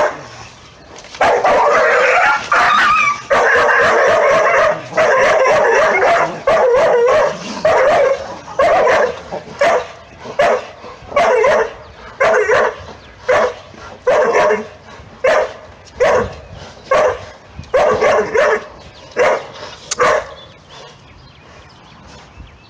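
Dogs fighting, with a dog barking over and over. There is a few seconds of continuous barking and yelping early on, then short barks about one every two-thirds of a second, which stop a couple of seconds before the end.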